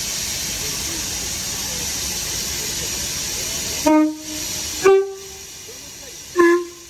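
Steady hiss of steam from the standing steam locomotive, then three short toots of a train horn at slightly different pitches from about four seconds in, with the hiss dying down after the first toot.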